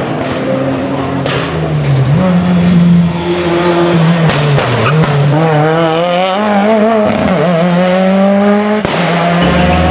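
Ford Escort RS Cosworth rally car's turbocharged four-cylinder engine revving hard through a bend, its pitch rising and falling with throttle and gear changes as it approaches and pulls away. Near the end the sound switches abruptly to another rally car's engine.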